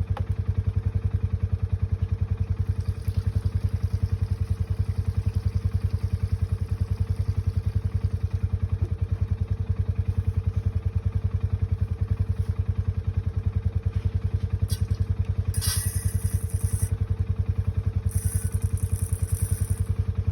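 A small engine or motor running steadily with an even, rapid pulse, then cutting off abruptly near the end.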